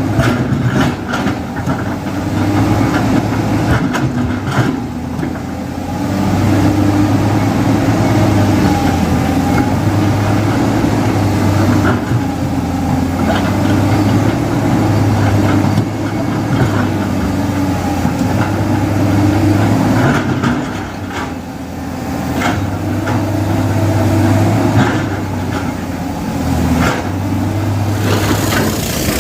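Heavy diesel engine of earth-moving machinery running steadily, its drone swelling under load and easing back several times, with a few knocks.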